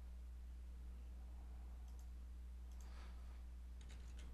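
A few computer mouse clicks, about three seconds in and again near the end, over a steady low hum.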